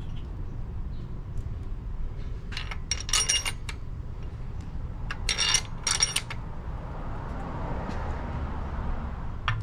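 Metal bolts and hand tools clinking together: three short clusters of ringing metallic clinks about three, five and a half and six seconds in, over a steady low rumble.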